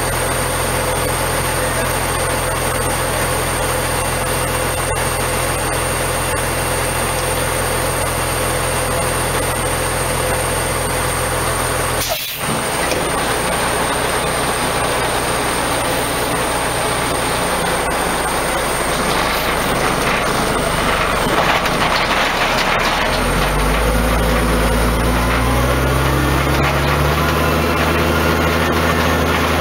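Heavy diesel truck engine idling steadily, with a brief sharp burst of noise about twelve seconds in. From about twenty-three seconds in the engine revs climb in steps and it runs harder and louder, as the bed truck works to recover the spun-out cement bulker.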